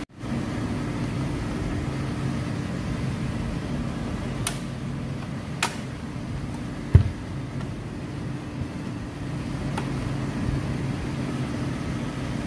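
Cold-storage refrigeration unit running with a steady mechanical hum, with a few scattered clicks and one louder knock about seven seconds in.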